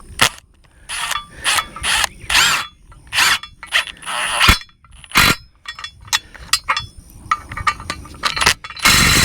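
A bolt being tightened into the wooden gate post with a socket tool: a run of short rasping strokes, then quick clicks, then a steady burst about a second long near the end.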